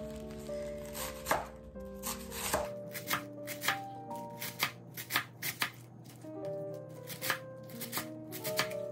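Chef's knife chopping a bundle of leafy greens on a wooden cutting board: a run of sharp, uneven knocks of the blade through the leaves into the board, coming quicker from about a third of the way in. Background music plays underneath.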